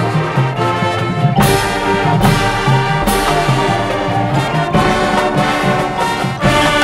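High school marching band playing loud brass-led music, sustained chords with moving low-brass lines, punctuated by several sharp full-band accents with percussion.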